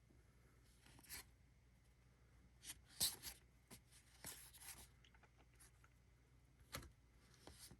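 Faint brushing and sliding of baseball trading cards being handled and flipped over, a few short swishes and clicks of card stock, the loudest about three seconds in.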